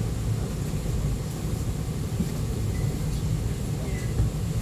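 Steady low hum and rumble inside an E2-class tram while it stands still, with a faint steady high whine over it.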